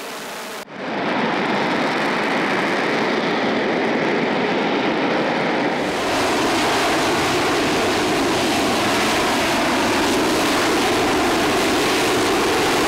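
Loud, steady jet noise from the Boeing X-32B hovering on its jet engine's downward thrust. It comes in abruptly about half a second in, after a quieter engine hum.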